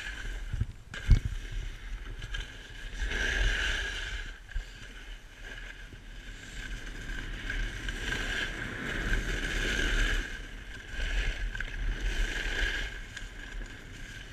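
Snowboard sliding and scraping over packed, groomed snow in swelling surges as the rider carves turns, with wind rumbling on the camera microphone. A sharp knock about a second in.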